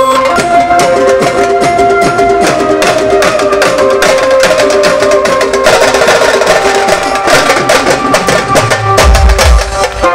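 Loud procession music from a truck-mounted DJ sound system with horn loudspeakers: a held melody over fast drum and percussion hits, with deep bass thumps near the end.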